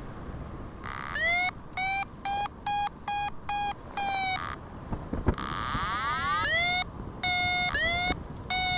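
Paragliding variometer beeping: short electronic tones, about two a second, each swooping up into a steady pitch, with a gap of about two seconds in the middle before the beeps resume. Such beeping is the vario's climb signal, telling the pilot the glider is rising in lift.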